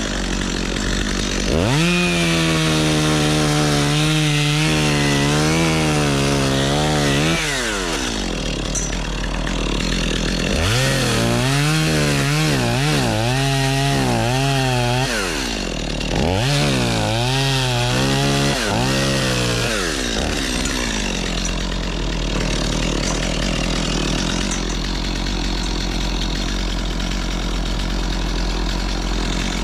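A chainsaw cutting wood in three stretches, its engine pitch wavering up and down as it works through the cut, over a continuous machine drone.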